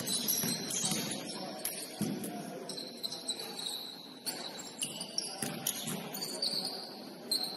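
Basketball shoes squeaking on the court floor in short, high squeals during play, with the ball bouncing a few times.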